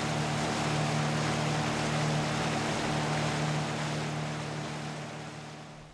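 Small boat's motor running steadily under way, with water rushing along the hull; the sound fades over the last couple of seconds.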